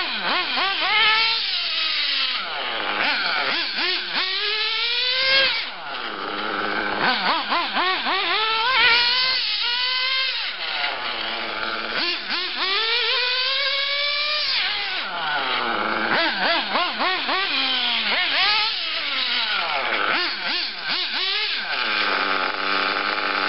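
RB One 1/8-scale nitro RC buggy's small two-stroke glow engine revving hard and easing off over and over as it is driven, its pitch rising with each burst of throttle and dropping back as it slows.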